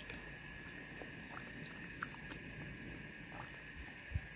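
A person chewing a mouthful of food, with a few light clicks of a metal spoon against a plate and a dull thump near the end, over a steady faint hum.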